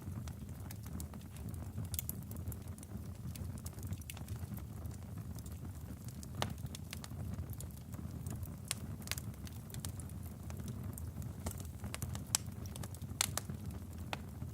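Log fire in a fireplace burning with a steady low rumble of flame and scattered sharp crackles and pops.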